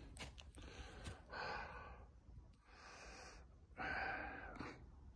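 A person breathing audibly close to the microphone, about four breaths, each lasting under a second. A few faint clicks sound between them.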